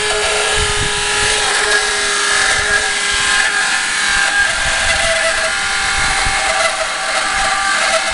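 Walrus TQI 1500 water booster pump running with a loud noise: a steady whine of several tones over a hiss.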